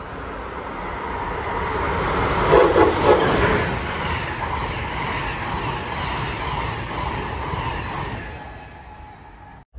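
Amtrak passenger train passing close at speed: a rising rush of wheels on the rails and air, loudest about three seconds in, then a steady rush as the coaches go by, dying away near the end.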